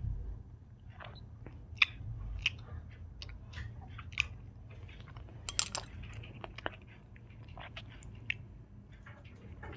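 Close-miked chewing of soft Indian sweets, with irregular wet mouth smacks and clicks.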